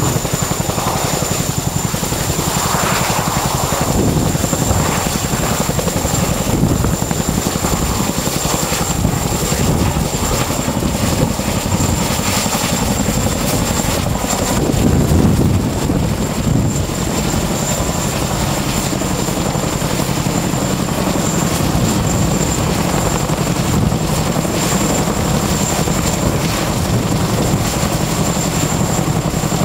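CH-47 Chinook tandem-rotor helicopter running: a steady, loud drone of rotor beat and turbine noise with a steady high whine.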